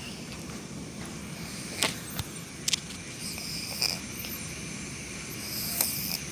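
A sleeping cat snoring, a steady low rumble, with a few short sharp clicks over it.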